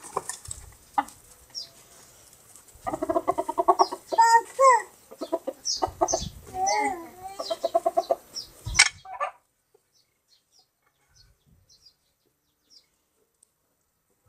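Chickens clucking in quick runs of short notes, with a few drawn-out squawks among them. They stop about two-thirds of the way through.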